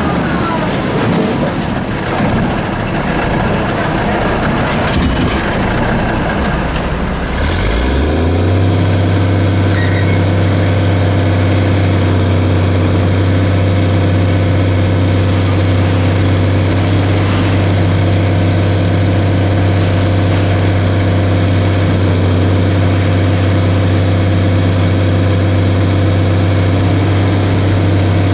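Heavy diesel engine running unevenly, its pitch rising and falling; about seven seconds in it speeds up and settles into a steady, loud, low drone held at a raised idle.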